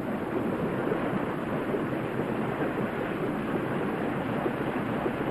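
A steady rushing noise, with no tone or rhythm in it.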